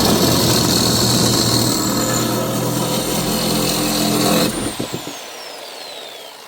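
Reciprocating saw cutting through old steel shelving, loud and steady, described as a little noisy. The cut stops about four and a half seconds in, and the saw's motor whine falls away as it winds down.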